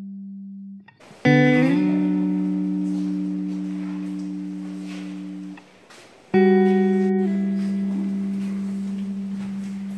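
Slow, sombre guitar music: a plucked chord about a second in that rings and slowly fades, then a second chord about six seconds in that rings on the same way.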